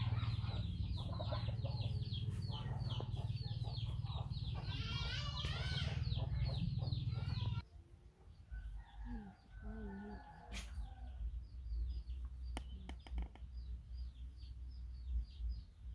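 Chickens peeping and clucking, a rapid run of high, short, falling cheeps over a steady low hum. About seven and a half seconds in the sound drops off sharply, leaving fainter cheeps, a few soft low calls and scattered clicks.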